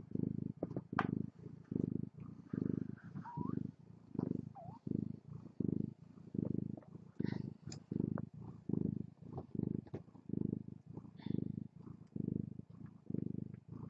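Mother cat purring steadily while nursing her litter, the purr swelling and fading with each breath about every 0.8 seconds. A few faint, brief high squeaks come through now and then.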